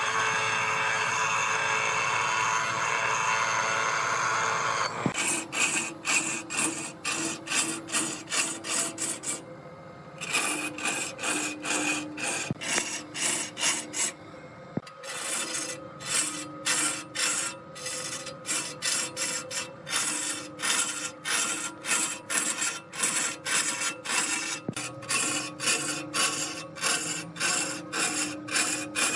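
A motor-driven grinding wheel grinds a steel bar with a steady rasp for about five seconds. Then a large log turns on a wood lathe as a hand-held turning tool scrapes it, about two strokes a second, over a faint hum, with two brief pauses.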